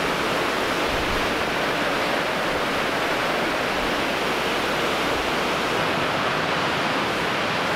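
Steady rush of white water pouring over a concrete dam spillway. About six seconds in, the deep rumble drops away, leaving the lighter rush of fast river current over rocks.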